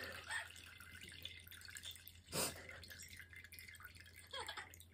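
Liquid dripping from a soaked plush toy: a few faint drops, the loudest about two and a half seconds in.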